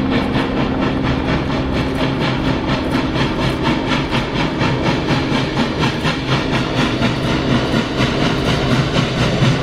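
Union Pacific Big Boy 4014, an articulated 4-8-8-4 steam locomotive, working hard as it approaches, its exhaust beating in a fast, even rhythm over the running noise of the train. The beat is the galloping exhaust of an articulated engine whose two sets of cylinders exhaust out of step.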